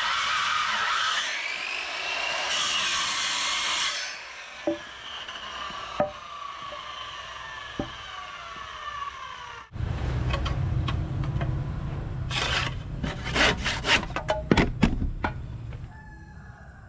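A power tool running under load for about four seconds, then its motor whining down in pitch as it coasts to a stop. After an abrupt cut, a low steady motor hum with a run of sharp taps and knocks.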